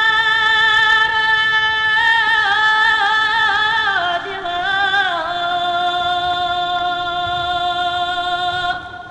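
Music: a single melody line holds a long high note with vibrato, slides down to a lower note about four to five seconds in, and holds that note until it stops near the end.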